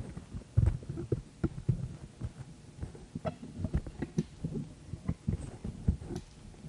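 Irregular soft low thumps and light clicks of hands handling and pressing a small metal organ pipe between the fingers.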